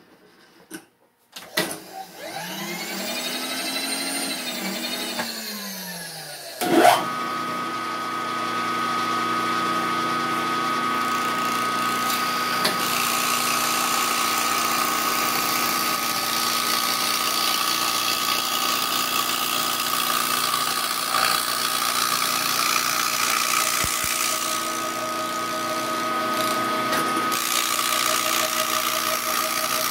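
Vertical milling machine started up: a whine rises and falls for a few seconds, then comes a sharp clack, and from about seven seconds in the spindle runs steadily while the cutter mills a plastic block flat.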